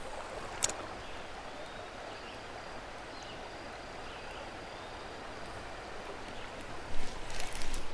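Creek water running steadily, with a short sharp click under a second in and a few louder irregular noises near the end.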